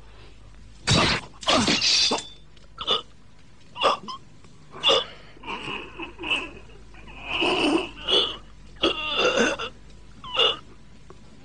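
Men's short shouts and grunts of effort, about ten of them one after another, with brief pauses between.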